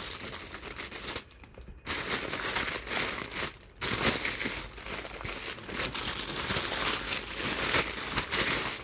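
Plastic mailer bag and plastic wrapping crinkling and rustling as hands cut into it with scissors and pull it open. The noise breaks off briefly about a second in and again about three and a half seconds in.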